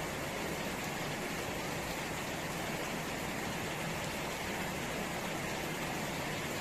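Steady rain falling and splashing on puddled ground and foliage: an even, unbroken hiss.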